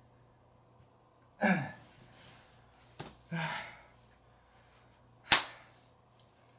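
A man's heavy, voiced sighing exhales, out of breath after a set of floor exercises: one about a second and a half in and another about three seconds in, with a small click between. Near the end comes a single sharp slap, the loudest sound.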